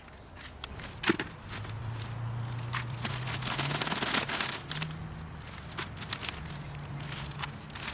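Potting soil being rustled and scraped by gloved hands in a plastic plant pot, with scattered crackles and a sharp knock about a second in as the pots are handled. A low hum runs underneath from about a second and a half in.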